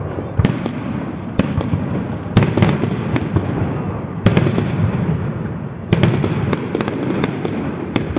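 Aerial firework shells bursting: about ten sharp bangs in eight seconds, some in quick pairs, over a continuous low rumble.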